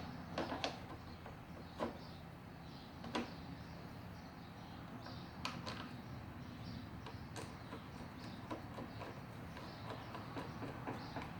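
Scattered light clicks and taps, a second or several apart, of parts being handled and fitted as a lawnmower's little plastic cover is put back on, over a faint steady low hum.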